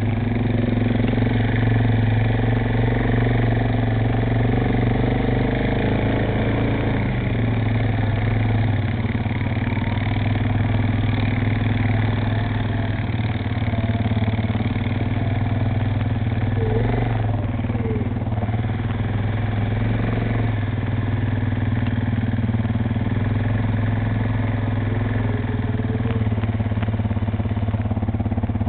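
ATV (quad bike) engine running steadily at an even pitch.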